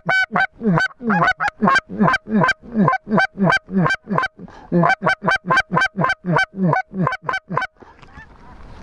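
Hunters' goose calls blown hard and fast: a loud run of honks and clucks, about four a second, calling to incoming lesser Canada and snow geese. The calling stops a little before the end, leaving wind rumbling on the microphone.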